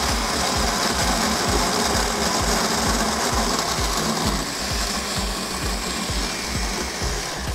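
Countertop blender running steadily at full speed, blending mango, yogurt, sugar and ice into a lassi, then switched off at the very end.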